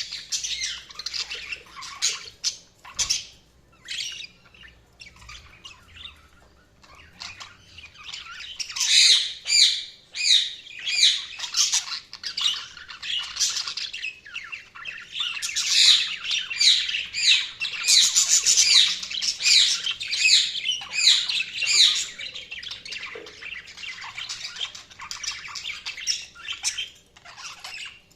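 Budgerigars chirping and chattering: rapid, high, scratchy chirps and squawks, sparse at first and becoming a dense, loud burst of chatter about eight seconds in.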